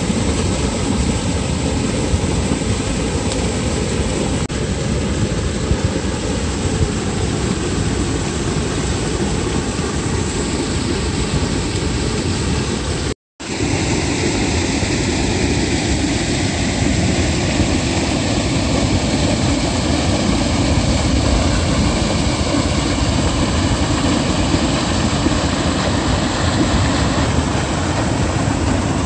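Steady rushing roar of canal water pouring over a concrete drop in white foam, loud and even, with a brief break a little before halfway.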